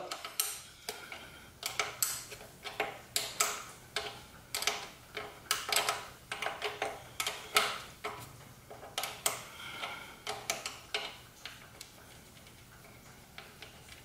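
Metal wrenches clicking and clinking on the nut and bolt of a BMW S1000RR's stock steering damper mount as the nut is loosened, about two or three short metallic clicks a second, thinning out near the end.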